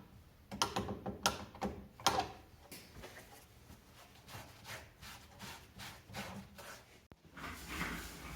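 A run of light clicks and knocks from parts being handled and fitted at a workbench, thickest in the first three seconds and sparser after.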